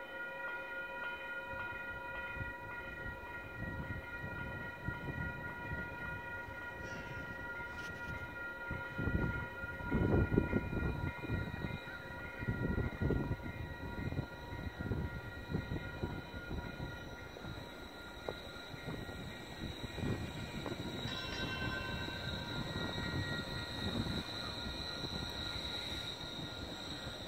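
Bombardier Flexity Freedom light rail vehicle running slowly past under its own power: a steady, high, multi-tone electric whine with a low rumble that is loudest about ten to thirteen seconds in as the car comes close. Near the end a higher whine grows stronger.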